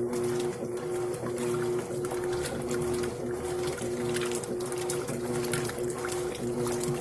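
Electrolux Essencial Care LES13 washing machine running with water in the drum: a motor hum that cuts in and out in short, regular pulses over the splash and trickle of water.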